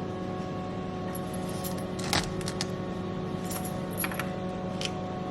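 Scattered light clicks and clinks from a cookie cutter being pressed through crumbly almond shortbread dough and handled, the sharpest about two seconds in, over a steady hum.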